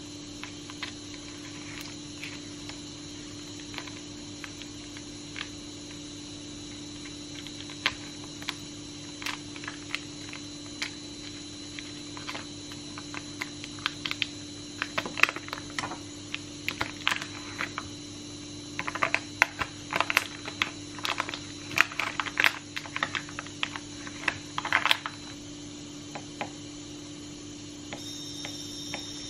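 Small knife cutting and tearing open a plastic sausage package by hand: irregular crackles and clicks of the plastic, sparse at first and thick in the second half, over a steady hum.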